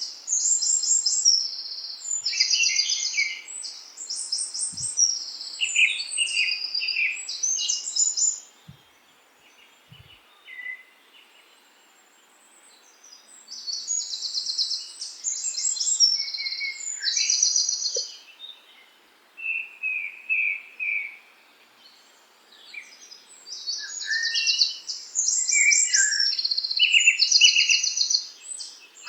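Songbirds singing in phrases of rapid, high, trilled notes with lower chirps between them. The phrases come in runs of several seconds, broken by quiet gaps of a few seconds, over a faint steady hiss.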